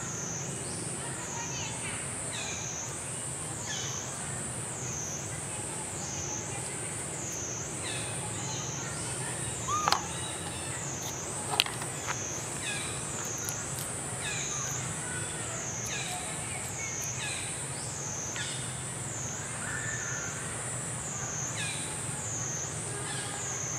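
Cicadas droning high and pulsing evenly about once a second, with a few short chirps and a sharp click near the middle.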